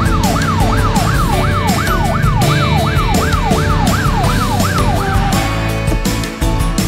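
Fire truck siren in a fast yelp, sweeping up and down about three times a second over background music. About five seconds in it settles on a short held note and cuts off.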